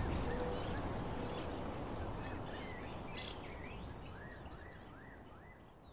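Songbirds chirping, with a quick run of four rising-and-falling whistled notes near the end, over a steady high pulsing insect trill and a low rumble. All of it fades out gradually.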